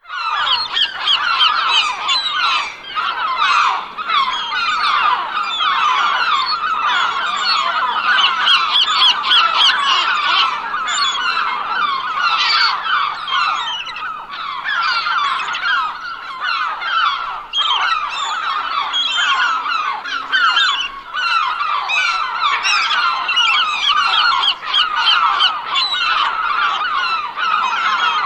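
A flock of seagulls calling continuously, many birds' calls overlapping into a dense, unbroken chorus.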